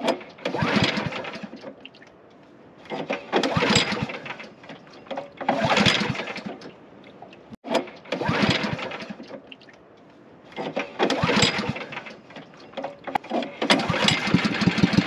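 Small boat's engine being pull-started by cord after breaking down: five pulls each turn it over for about a second before it dies, and on the sixth pull, near the end, it catches and keeps running.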